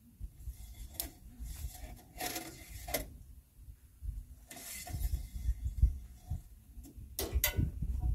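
Shirt fabric rustling and rubbing close against the microphone, with a few short scrapes and light knocks as the engine oil dipstick is handled.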